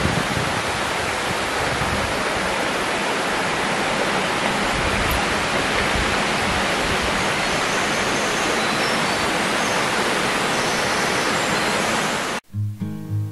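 Steady, even rush of water from a stream flowing beneath the stone arch. It cuts off abruptly near the end, and strummed acoustic guitar music begins.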